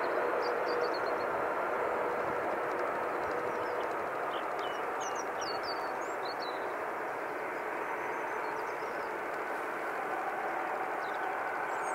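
Steady jet engine noise from a heavy wide-body airliner, slowly fading, with small birds chirping faintly a few times over it.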